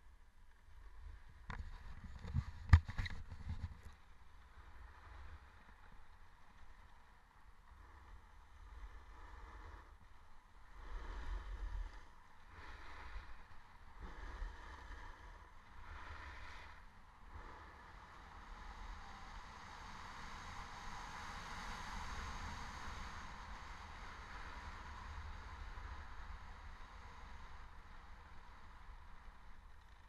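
Snowboard sliding over snow, its hiss swelling through the second half, with wind rumbling on a helmet-mounted camera's microphone. A few sharp knocks about three seconds in.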